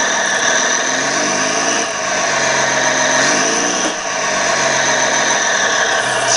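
Scale RC excavator's simulated diesel engine sound from its Servonaut sound module, rising and falling in pitch several times as the machine is worked, over a steady high whine.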